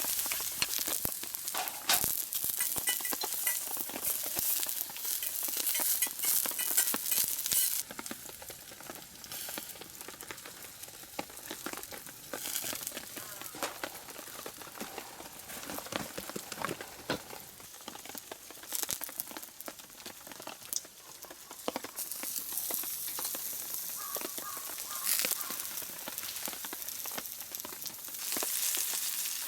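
Steak sizzling over a campfire, a dense hiss broken by small spitting crackles. It is loudest for the first eight seconds, quieter through the middle, then louder again later on.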